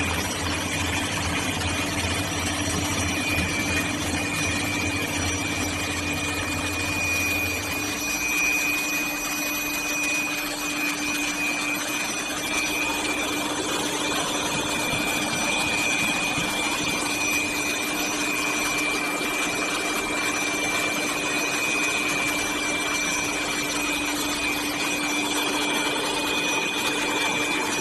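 Grinding machine for diamond saw blade segments running steadily, with a constant high whine over a noisy grinding hiss; a deeper low hum drops out about eight seconds in.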